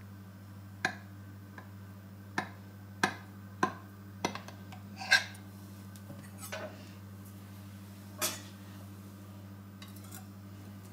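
Metal knife and cake server clinking against a glass baking dish while a tiramisu is cut and a slice is lifted out: about eight sharp, irregular clinks with a short ring, over a steady low hum.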